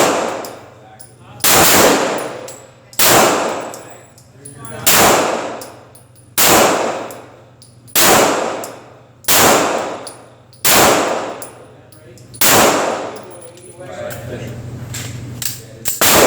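Canik TP9SA 9mm pistol firing single shots at a slow, steady pace, about one every one and a half seconds, nine shots in all, each followed by a long ringing decay. There is a longer pause before the last shot near the end.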